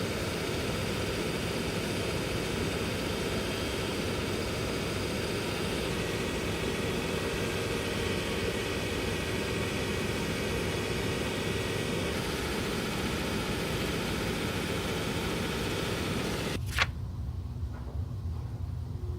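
Steady whir of a motor-driven workshop tool running, then switched off with a click about seventeen seconds in.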